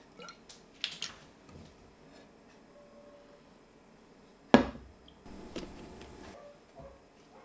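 Handling sounds of a stainless steel pan and cookware: a few small clicks, then one sharp knock about halfway through as the pan is set down, followed by about a second of rustling as courgette halves are moved on a metal baking tray.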